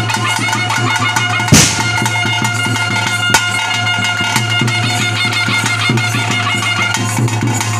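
Bhuta Kola ritual music: steady drumming with a held, high melody line over it, and one loud sharp crash about a second and a half in.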